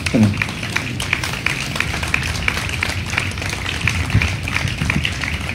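Scattered applause from a small crowd, with many individual claps heard, over a low rumble.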